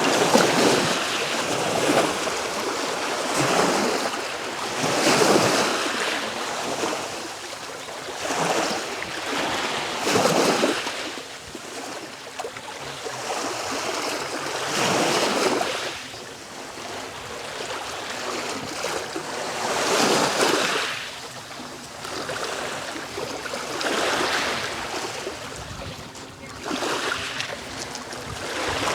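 Black Sea waves breaking on the shore: surge after surge of surf, each rushing in and fading, every few seconds at an uneven pace.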